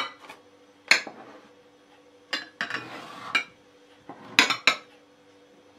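Glass bowls knocking and clinking against each other and on a wooden tabletop as they are slid aside by hand: a handful of sharp clinks spread over a few seconds, two close together near the end.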